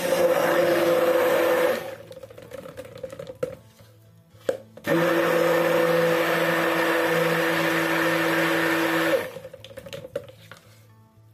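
Electric stick blender running in a plastic jug of cold-process soap batter (oils with caustic soda), blending it toward trace. It runs in two pulses, stopping about 2 s in and starting again about 5 s in for some four seconds, with a couple of light knocks in the pause.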